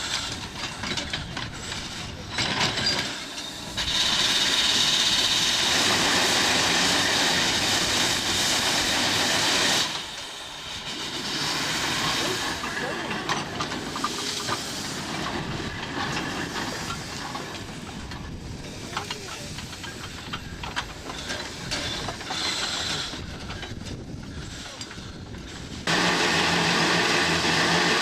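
Erie Type A steam shovel working, with long loud bursts of steam hiss: one for about six seconds starting around four seconds in, another near the end, and quieter clattering machinery noise in between.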